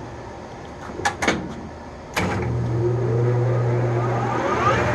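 Enco 405G lathe (Chien Yeh CY405) being switched over to run in reverse: two sharp clicks of the controls about a second in, then the drive motor starts a little over two seconds in with a steady low hum and a rising whine as the spindle and gearing spin up.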